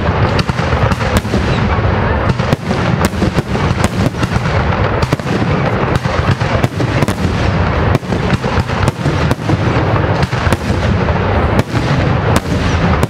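Dense barrage of aerial firework shells bursting in quick succession: many sharp bangs a second over a continuous din of overlapping explosions, with no pause.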